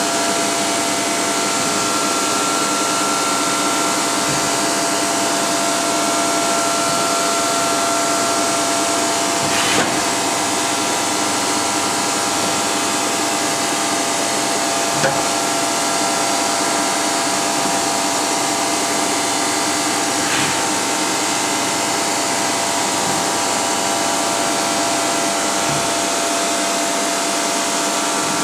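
Matsuura RA1 CNC vertical machining center running: a steady mechanical whine of several held tones over a hiss, with one higher tone that drops out about a third of the way in and a few faint ticks.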